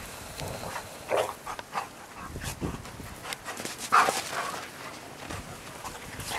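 Two giant schnauzers play-fighting in snow, making short, irregular dog vocal sounds amid the scuffle; the loudest burst comes about four seconds in.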